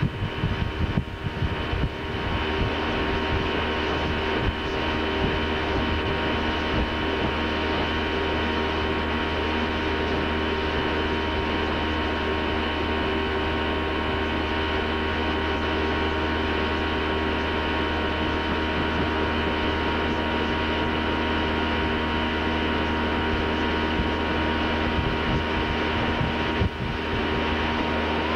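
Tow boat's engine running steadily at skiing speed, heard from on board: a constant drone with a steady hum that does not change.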